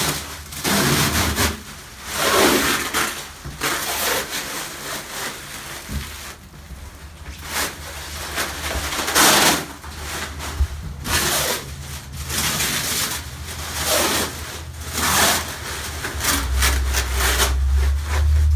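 Protective PVC film being peeled off aluminum diamond plate sheet and crumpled by hand, in a series of rustling pulls about one a second.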